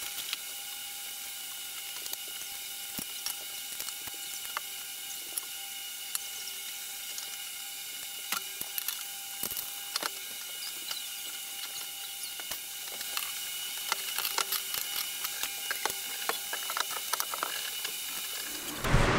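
Scattered small clicks and taps of metal and plastic drain parts being handled and threaded together as a sink drain assembly is fitted to a vanity sink, over a steady faint hiss with a thin hum. The clicking gets denser in the last few seconds.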